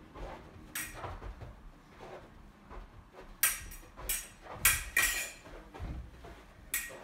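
Foil fencing bout: a string of sharp clicks and knocks from foil blades meeting and feet striking the floor, the loudest clustered about three and a half to five seconds in.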